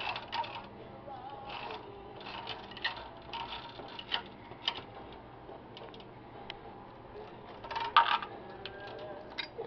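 Scattered metallic clinks and light knocks of hand tools and loose metal parts against the engine, with a louder cluster of clanks about eight seconds in.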